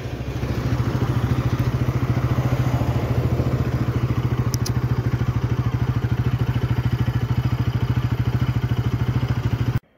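A vehicle engine running steadily with an even, rapid pulse, cutting off suddenly near the end.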